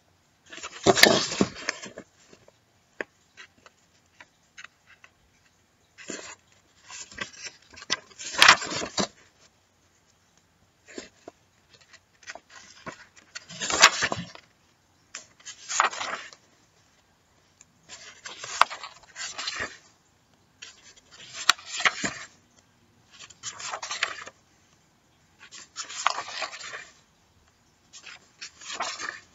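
Paper pages of a paperback coloring book being turned by hand, each turn a short rustle. There are about ten turns, one every two to three seconds.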